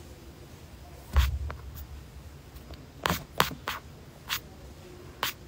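Handling noise on a phone's microphone: a soft thump about a second in, then a handful of small, sharp clicks and taps spread over the next few seconds.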